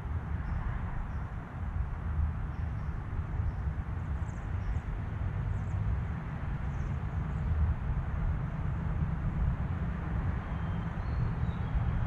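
Steady, uneven low rumble outdoors, with a few faint, short, high bird chirps scattered through it.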